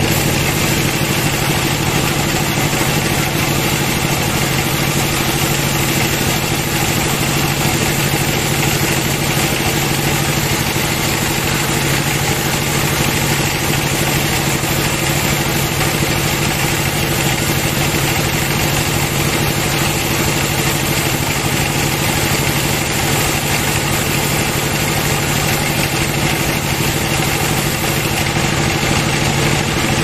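Band sawmill running steadily, its band-saw blade ripping lengthwise through a log.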